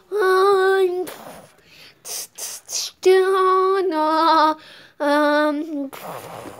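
A child singing a slow, wordless tune in a few long held notes, each phrase dipping lower at its end. Between the phrases, about two seconds in, there is a short breathy hiss.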